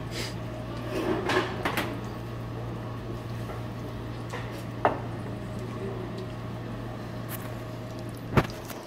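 Stainless-steel mixing bowls knocking and clinking as a cook handles them: a few scattered knocks, a cluster about a second in and the loudest one near the end, over a steady low hum.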